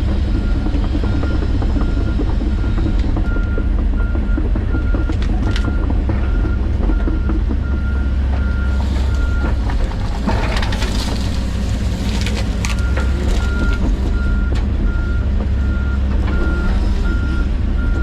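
John Deere 130G excavator's diesel engine running steadily under work while its travel alarm beeps about twice a second. The beeping stops for several seconds in the middle, when a burst of crackling noise comes through, then starts again.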